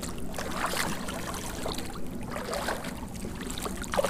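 Hooked trout thrashing at the surface of shallow water, splashing in irregular bursts as it is played in toward the bank.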